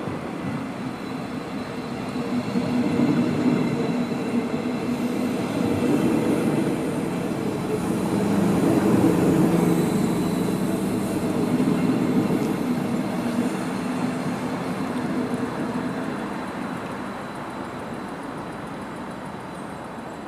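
Thurbo Stadler GTW electric multiple unit rolling along the platform and past. Its wheels and running gear build to a peak about nine seconds in, then gradually ease off.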